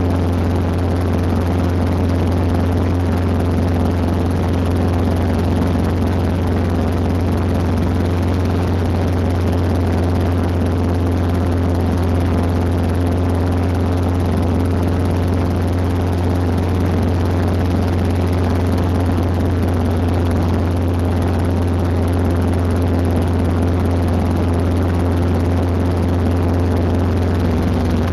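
Robinson R22 Beta II helicopter's four-cylinder Lycoming piston engine and rotors running in flight, heard from inside the cabin. It is a steady, loud low drone with a buzz that does not change.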